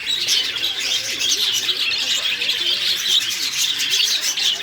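Many caged songbirds chirping and twittering at once in a dense, continuous chorus.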